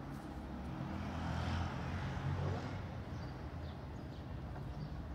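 Outdoor street traffic, a steady low rumble with one vehicle swelling past about two seconds in.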